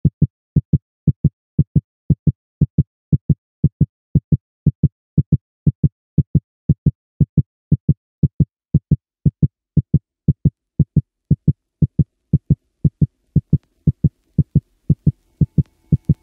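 A lone electronic kick drum beating steadily at about two beats a second, the opening of a music track; faint further layers of the track come in near the end.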